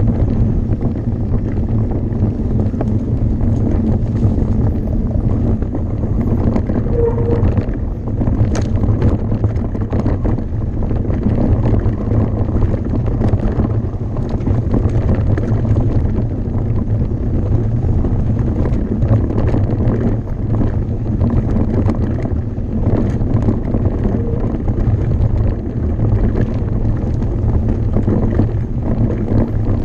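Steady wind noise buffeting the microphone over the rattle and scattered knocks of a mountain bike descending a rough enduro trail.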